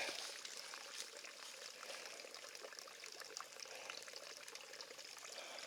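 A thin trickle of water running down over large rocks, a steady, faint splashing.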